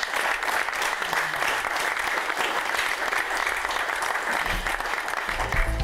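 Audience applauding steadily at the close of a talk, with music starting up right at the end.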